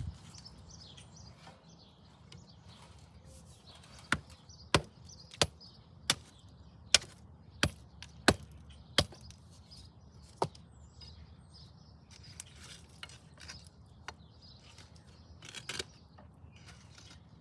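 A run of about nine sharp strikes in a steady rhythm, roughly one every two-thirds of a second, then one more a second and a half later, with faint bird chirps in the background.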